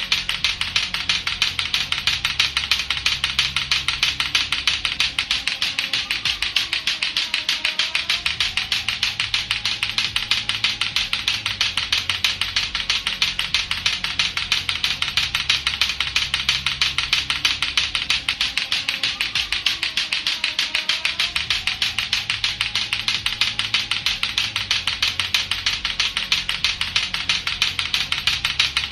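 Latto-latto clacker toy, its two hard plastic balls knocking together in a fast, steady stream of sharp clacks, about six a second. A quieter low backing track loops underneath.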